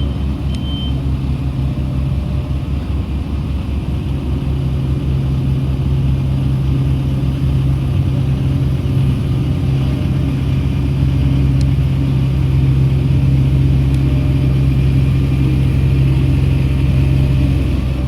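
Heavy vehicle engine running steadily with a low, fast pulsing note, growing somewhat louder over the first half.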